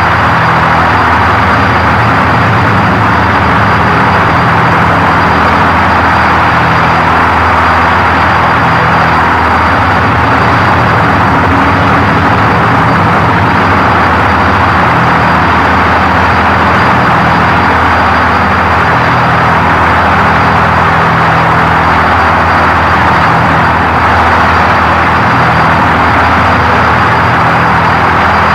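Power electronics noise: a loud, steady wall of harsh static over low droning tones that shift in pitch, with a thin high whine.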